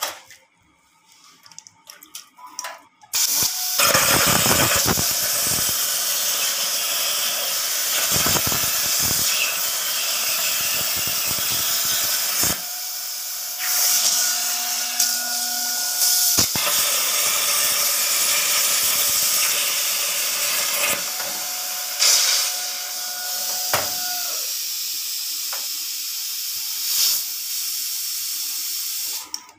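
CNC plasma cutter torch cutting steel plate. The loud, steady hiss of the plasma arc starts about three seconds in and runs until just before the end, with a faint whine coming and going.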